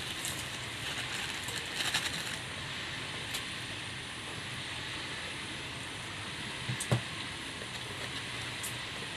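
A person eating: scattered soft crackly chewing clicks over a steady background hiss, with a sharper knock about seven seconds in.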